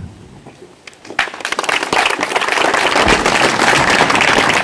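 Audience applauding: clapping starts about a second in, swells quickly and holds steady.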